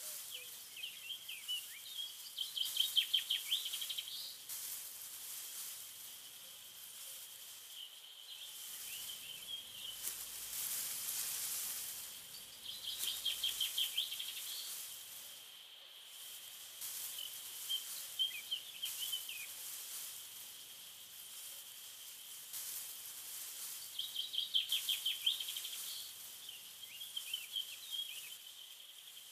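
A songbird sings a short, fast trill three times, about ten seconds apart, with fainter chirps between, over a steady high-pitched whine and a soft hiss that swells and fades.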